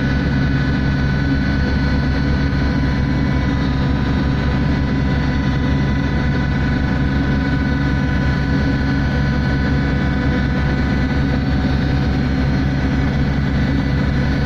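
A survey vessel's engines and machinery running steadily: a constant low drone with a few steady hums higher up.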